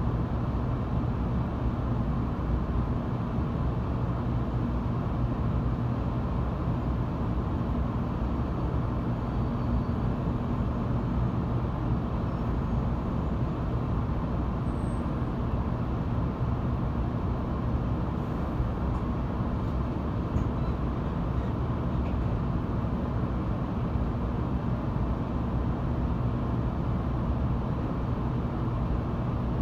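Steady low hum and rumble inside a car of an 800 series Shinkansen train, with a constant low drone and no change in level.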